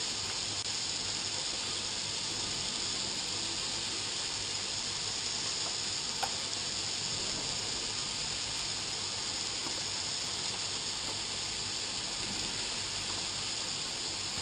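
Steady sizzling of meat and sliced mushrooms frying in olive oil in a pan on a burner turned up as high as it goes. One small click about six seconds in.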